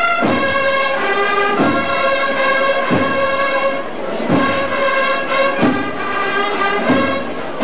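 Brass band playing a slow processional march, the melody moving in long held notes that change about once a second.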